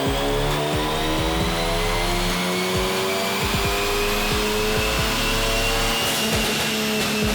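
2014 Ford Focus ST's 2.0-litre turbocharged EcoBoost four-cylinder pulling under full load on a dyno, its engine note climbing slowly and steadily in pitch, easing off near the end.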